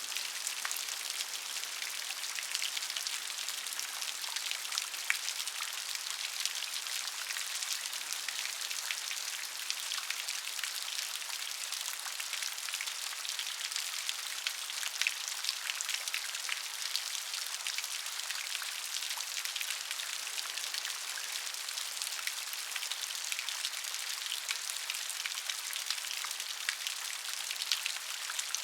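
Steady rain falling, with many individual drop impacts ticking over an even hiss.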